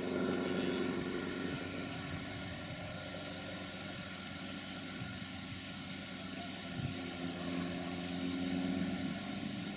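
A vehicle's diesel engine running steadily, a low drone that grows a little louder near the end.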